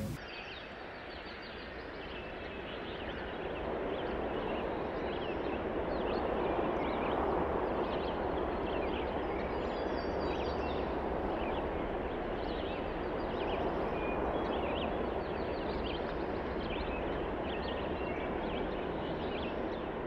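Outdoor mountain-meadow ambience: a steady rushing noise with many short, high bird chirps scattered throughout.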